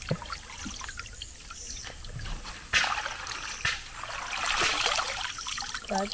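Water trickling and splashing in a few short bursts, about three seconds in and again for a second or so near five seconds.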